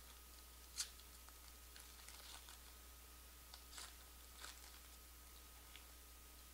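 Near silence over a low steady hum, broken by a few short, crisp rustles and taps of trading cards and pack wrappers being handled, the sharpest about a second in and a small cluster a few seconds later.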